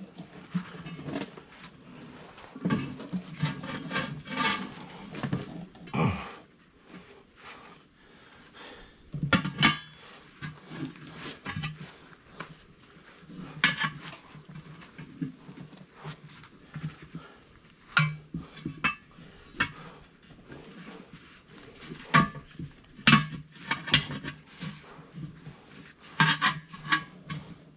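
Steel tire irons clanking and scraping against a steel wheel rim and the mounting stand's centre post as a stiff tractor tire bead is pried over the rim, with irregular sharp metal knocks. Hard breathing from the effort runs between the knocks.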